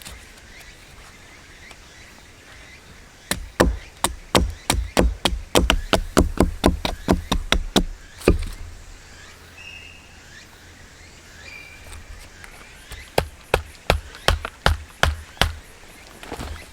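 Two runs of rapid, even knocking, about four to five blows a second, from a hand tool striking something hard: the first lasts about five seconds, the second, shorter, comes near the end.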